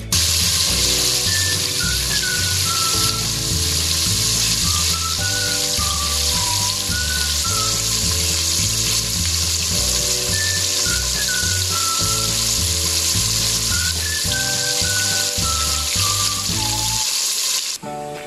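Chicken pieces deep-frying in hot oil: a loud, steady sizzle. Background music with a repeating bass line and a high wavering melody plays under it. The sizzle cuts off suddenly near the end, leaving only the music.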